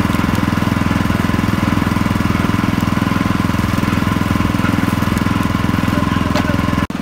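Motorised sugarcane juice crusher running. A small engine chugs steadily and rapidly, driving the belt, flywheel and steel rollers while cane stalks are fed through and crushed. The sound cuts out for an instant near the end.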